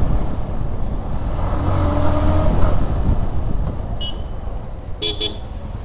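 Motorcycle ride at speed: engine and road rumble with wind rushing over the microphone, slowly getting quieter. A short steady tone sounds about two seconds in and a brief sharp sound about five seconds in.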